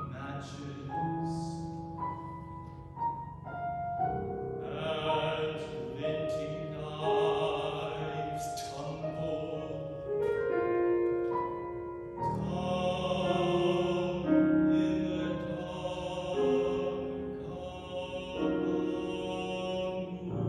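Tenor singing a classical art song in an operatic style with piano accompaniment, on held notes with vibrato and crisp consonants, growing louder about halfway through.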